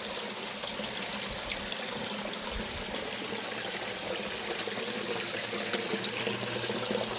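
Water trickling and splashing steadily as a pump-fed indoor creek runs into a small pond, with a faint steady hum underneath.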